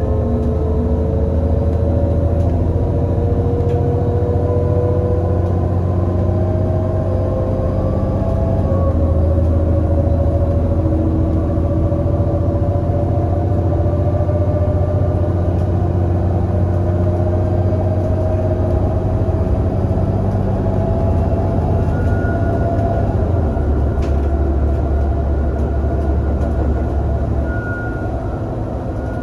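Irisbus Citelis 18 GNC articulated bus's IVECO Cursor 8 six-cylinder CNG engine and ZF Ecomat six-speed automatic pulling under load: a low rumble with a whine that climbs slowly, dropping in pitch at gear upshifts about a second in and again about eight seconds in. Near the end the low rumble falls away as the bus eases off.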